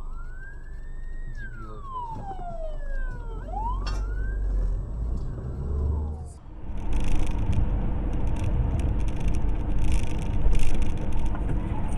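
Police siren wailing in slow rising and falling sweeps. About six seconds in, it cuts off and gives way to steady road and engine noise inside a moving car.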